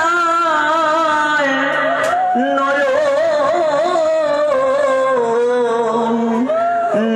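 A man singing a devotional song in long, ornamented phrases, with wavering turns of pitch, over a steady drone accompaniment.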